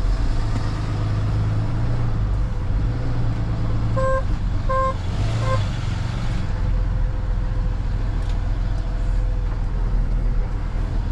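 Steady low rumble of an idling truck engine, with a car horn sounding three short beeps about four seconds in. The horn is stuck on from the crashed car's collision with a pole and can't be shut off because the hood won't open.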